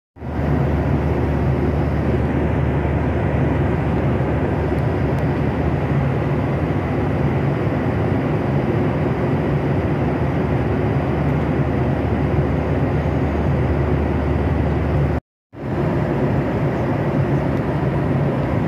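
Boeing 737 cabin noise in flight, heard from a window seat beside the wing and engine: a steady jet-engine and airflow drone with a faint high whine above it. It drops out for a split second about 15 seconds in.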